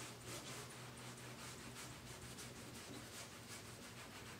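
Cloth rag wiping the glossy black cowling of a Mercury Pro XS outboard, a faint repeated rubbing over a low steady hum.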